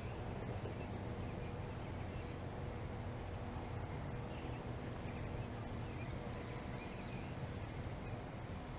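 Outdoor background: a steady low rumble with faint bird chirps now and then.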